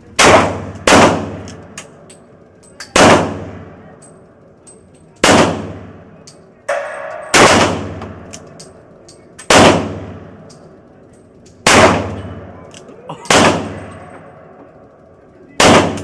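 About nine handgun shots fired one at a time, mostly about two seconds apart with the first two closer together, each followed by a short echoing decay. Fainter clicks and pops fall between the shots.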